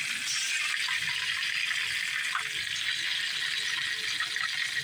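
Flour-battered catfish pieces sizzling steadily in a shallow pan of hot oil, with small crackles and pops.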